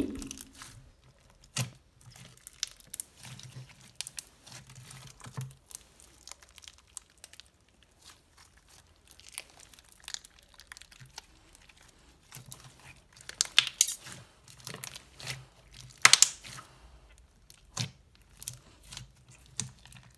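Thick glossy slime with mixed beads being handled, poked and stretched: scattered sticky clicks and crackles, with the loudest bursts about 13 and 16 seconds in.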